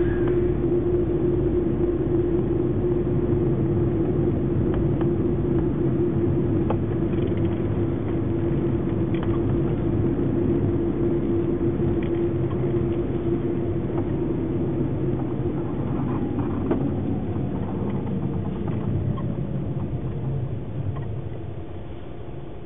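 Car driving along a road, heard from inside: a steady engine hum over low road rumble. It drops away near the end.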